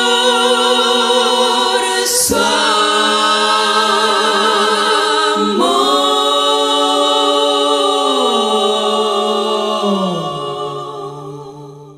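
Women's vocal quartet singing a cappella, holding long sustained chords that change about two seconds and five and a half seconds in. Near the end the voices slide down into the final chord, which fades out: the closing cadence of the song.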